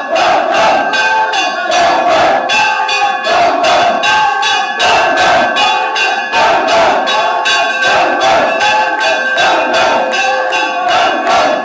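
A metal bell is struck over and over at about three strikes a second, its ringing tones carrying on between strokes. Under it is the sound of a crowd's voices.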